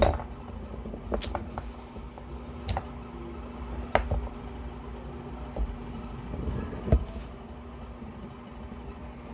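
Handling noise: a few scattered light clicks and knocks, about five in all, over a steady low hum.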